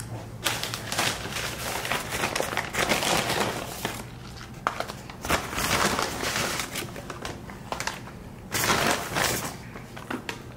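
Paper fast-food takeout bags crinkling and rustling in irregular bursts as food containers are taken out of them.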